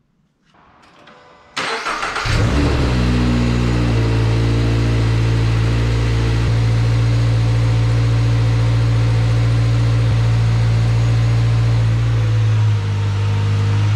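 2022 Toyota GR86's 2.4-litre flat-four boxer engine starting: it cranks and catches about a second and a half in, the revs flare up and then settle into a steady idle. The idle drops slightly near the end.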